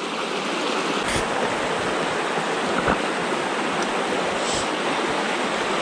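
Shallow mountain river rushing over stones, a steady rush of water.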